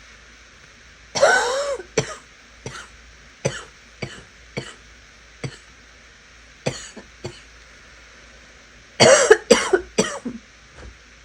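A person coughing raspily: one long, harsh cough about a second in, then a string of short single coughs, and a quick run of several coughs near the end.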